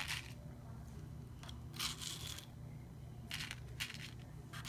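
Small flatback rhinestones scooped and pushed around with a long acrylic nail tip, giving about five short, light rattles of tiny crystals against the plastic box and each other, over a faint low hum.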